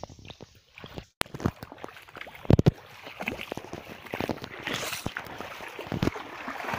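Footsteps and sloshing through a shallow rocky creek, with knocks and rubbing from the handheld phone; the loudest thumps come about two and a half seconds in.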